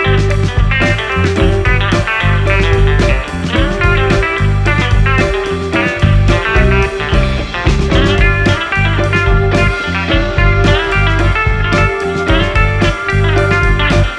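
Background music with a steady beat, led by guitar.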